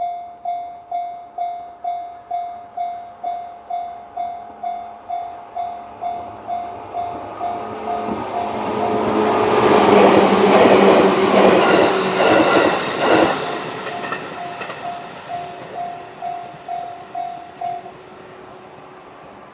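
Japanese railway level-crossing alarm in the JR standard sound, an electronic bell ringing about twice a second, while a JR 211-series electric train passes. The train builds from about 8 s in, is loudest around the middle with rapid wheel clatter over the rail joints, and fades by about 14 s. The alarm stops a couple of seconds before the end.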